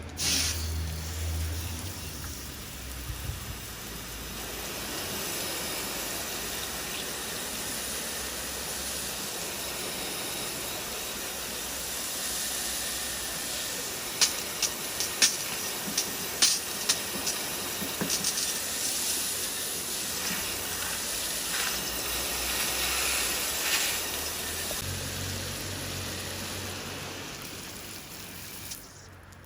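Steady hiss of a water spray on the heat pump fan, starting and stopping abruptly, with a run of sharp clicks and taps about halfway through.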